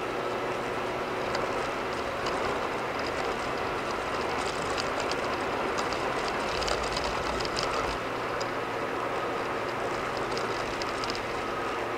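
Steady tyre and road noise with a low engine hum, heard inside a car cruising at about 55–60 mph on a concrete-paved toll road. A low rumble swells briefly a little past the middle.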